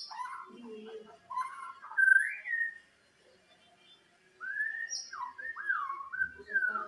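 Murai songbird giving a strange, chicken-like call: short whistled notes, the loudest about two seconds in, then after a pause a run of sliding, wavering whistles.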